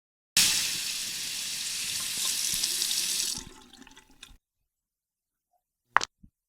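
Water running from a tap into a sink, starting abruptly and shutting off about three seconds later, trailing away. A single short click near the end.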